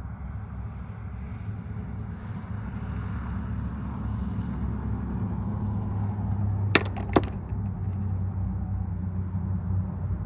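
A steady low mechanical hum with an even pitch, and two sharp clicks close together about seven seconds in.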